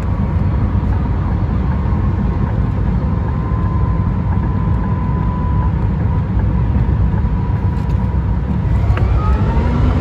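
Cabin noise of the four-motor Rimac Nevera electric hypercar at motorway speed: a steady low tyre and road rumble with a faint high whine. Near the end the electric drive's whine rises in pitch as the car accelerates hard.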